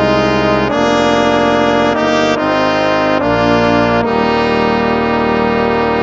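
Instrumental hymn played on brass instruments, slow sustained chords changing about once a second, with the last chord held for the final two seconds.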